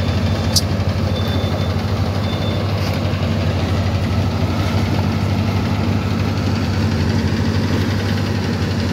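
Iveco Tector truck's diesel engine idling steadily, a low even hum, with one short click about half a second in.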